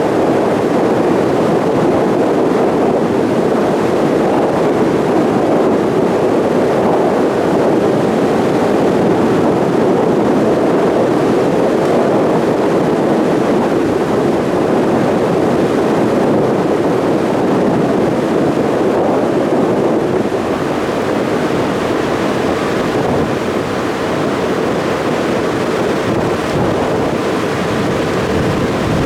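Steady, loud rush of a passenger ferry under way: engine drone mixed with water washing past the hull and wind on the microphone, easing a little about two-thirds of the way through.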